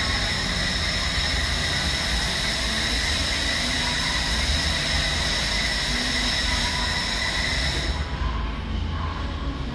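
Laser welder running: a steady hiss with a high whine that cuts off about eight seconds in, over a low rumble that carries on.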